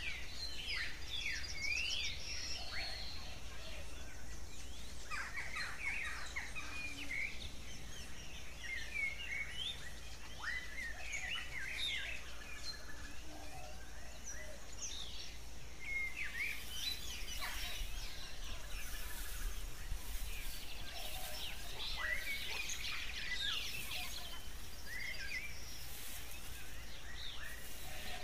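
Birds chirping and singing in a background nature ambience: many short rising and falling calls from several birds, over a steady low hum.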